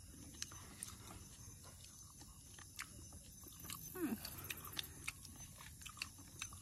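Faint eating sounds: fingers working rice and chicken gravy on plates, with chewing and small scattered clicks. A brief falling vocal sound comes about four seconds in.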